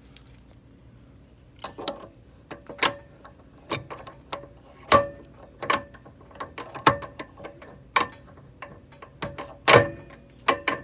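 Sharp knocks and clicks, roughly one a second, as a CV axle shaft is worked into the passenger side of a Can-Am Maverick's front differential until its splines seat and it goes all the way in.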